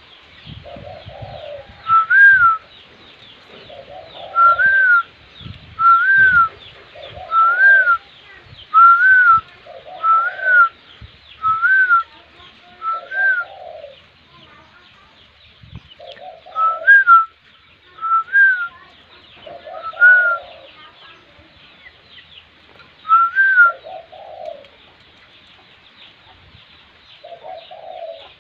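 Spotted dove cooing, low phrases repeated every few seconds. Interleaved with them, and louder, comes a clear higher note that rises and falls, repeated about every second and a half, with a pause about halfway through.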